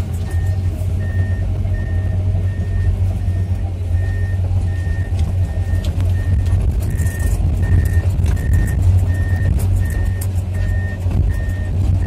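Komatsu PC210-10 hydraulic excavator's diesel engine running steadily under load as it travels on its tracks, with its travel alarm beeping about twice a second and scattered clicks.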